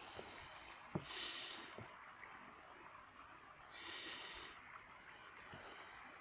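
Footsteps on the wooden sleepers of a railway track, a few knocks early on, and the walker breathing out audibly twice, close to the phone's microphone.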